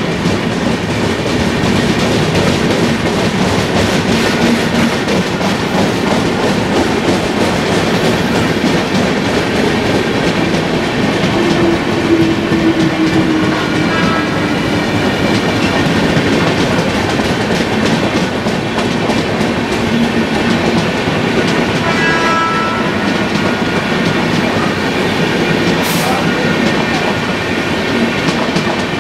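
Indian Railways passenger coaches running past at speed: a steady, loud noise of steel wheels on rail, with rapid clicks as the wheels pass over rail joints.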